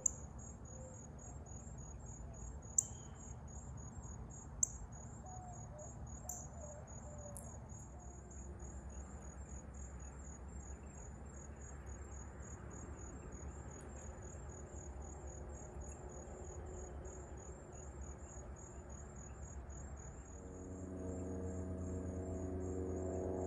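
Insects trilling in a steady, high, rapidly pulsing chorus, with a few sharp clicks in the first several seconds over a low outdoor rumble. About 20 seconds in, a low drone of several steady tones rises in.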